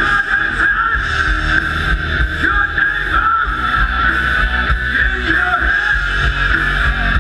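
Live rock band playing loud through a PA, with electric guitar.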